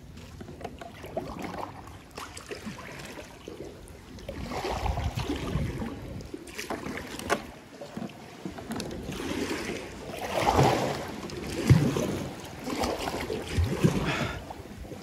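Water splashing and sloshing around a kayak as it is paddled, in uneven surges that come about every second in the second half, with a couple of sharp knocks in the middle.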